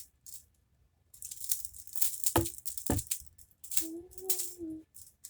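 Plastic jumbo color-changing slinky rattling and swishing as it is shifted back and forth between the hands, with two sharper clacks in the middle. A short hummed voice note comes near the end.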